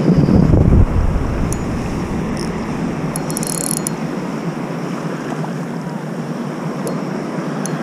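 Spinning reel being wound and clicking while a small bream is played on a light rod, over a steady rush of wind on the microphone. A heavy handling thump comes in the first second, and a short burst of fast clicking from the reel about three seconds in.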